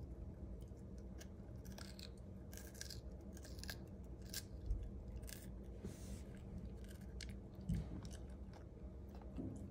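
A puppy biting and chewing raw red bell pepper: irregular crisp crunches and snaps of the pepper flesh, over a low steady hum.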